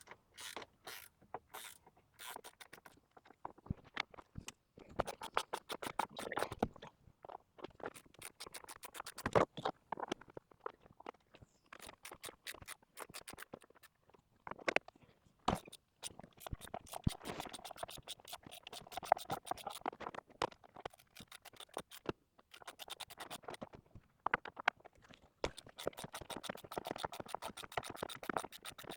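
Hand ratchet wrench clicking in quick runs with short pauses between them, as the steering-wheel airbag's mounting bolts are worked loose by hand.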